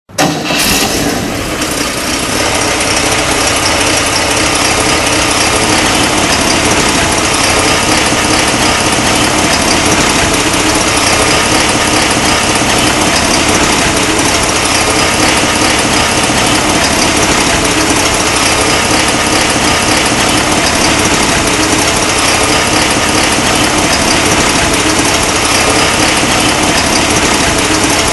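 1959 Cadillac Series 62's 390 cubic-inch V8 running steadily.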